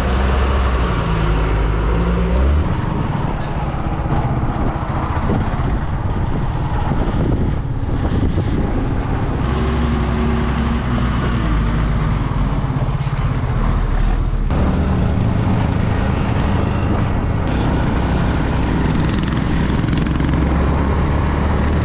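Riding sound of a Yamaha MT-15 motorcycle: engine running with road and wind rumble, in short clips that change abruptly several times.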